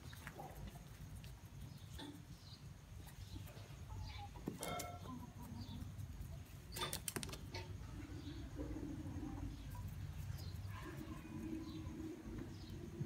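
Faint farmyard sounds of Aseel chickens feeding: a few sharp pecking taps on a clay feed bowl, scattered short high chirps, and a soft low call in the second half.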